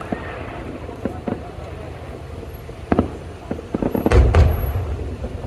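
Aerial fireworks shells bursting: a few scattered sharp bangs, then a cluster of bangs with a loud, deep rumbling boom about four seconds in.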